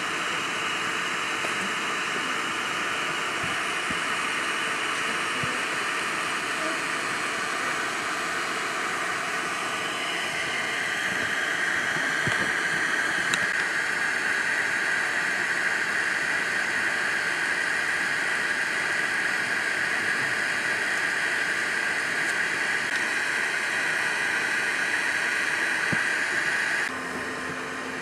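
Steady outdoor background hiss, a little louder from about ten seconds in, dropping off abruptly near the end.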